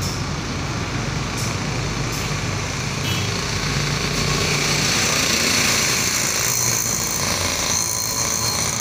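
Steady background noise of motor vehicles running, with a few faint clicks.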